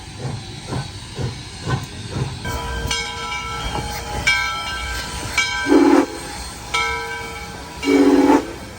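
Southern Railway 630, a 2-8-0 steam locomotive, chuffing about twice a second, then sounding its Nathan six-chime whistle in a series of chord blasts: two long, one short, then another long. Two short, loud, lower-pitched bursts come near the middle and near the end.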